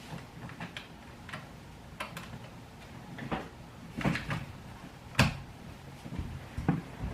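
Scattered light clicks and knocks from handling a laptop during its first boot after a RAM and SSD upgrade, with the sharpest knock a little over five seconds in.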